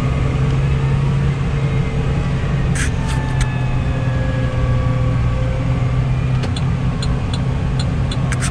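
Case IH Puma 200 CVX tractor's six-cylinder diesel running steadily under load, heard from inside the cab, with the engine note sinking slowly as the exhaust brake holds the loaded tractor back on a downhill. A few light clicks sound about three seconds in and again near the end.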